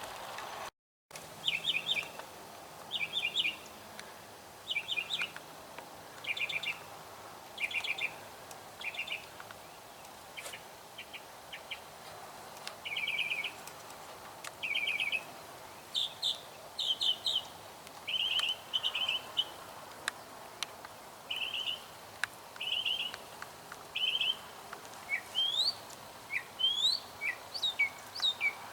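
Wild songbirds singing: short trilled phrases repeated every second or two, with quick rising whistled notes near the end.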